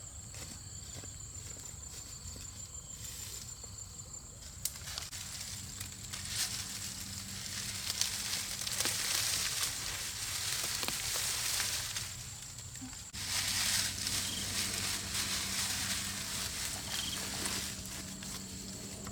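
Open wood fire crackling and hissing, with scattered sharp pops. The hiss swells about five seconds in and starts again suddenly about two-thirds of the way through. A steady high insect trill is heard at the start.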